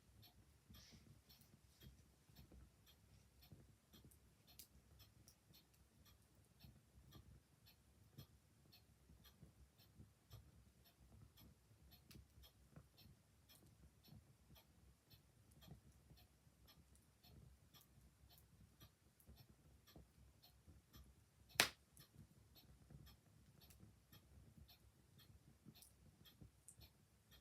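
Clock ticking steadily, faint, over the quiet crackle of an open fire, with one sharp pop from the fire about three-quarters of the way through.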